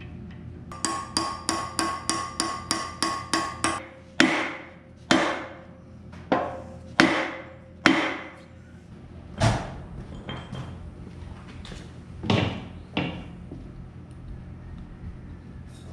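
Hammer blows struck through a wooden block against the cutter-wheel assembly of a Rayco RG50 stump grinder, during a pillar bearing replacement. A quick run of about a dozen ringing strikes, about four a second, is followed by about eight slower, heavier, irregularly spaced blows.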